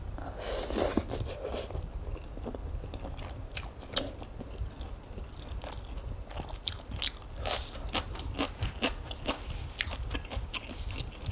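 Wet chewing of a mouthful of spicy rice noodles, then crisp crunching of a raw green vegetable: many short, sharp crunches, thickest in the second half.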